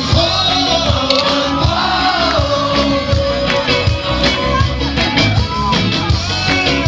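Live band playing a song with drums, bass and electric guitar, a voice singing long gliding notes over it, recorded loud from among the audience.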